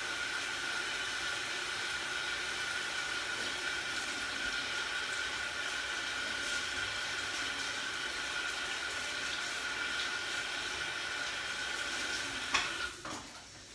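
Kitchen tap running steadily into a sink while potatoes are washed under it, with a faint steady whistle in the flow. The water is shut off with a click near the end.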